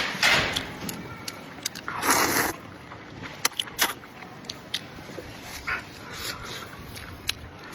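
Close-miked eating of spicy noodles and beef: chewing and mouth noises with many sharp small clicks, and two short hissing slurps, one right at the start and one about two seconds in.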